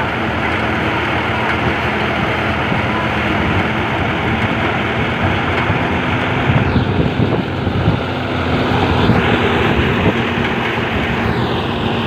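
Portable rice thresher running with a steady hum from its small gasoline engine as rice stalks are fed into the threshing drum. The noise gets louder for a few seconds past the middle.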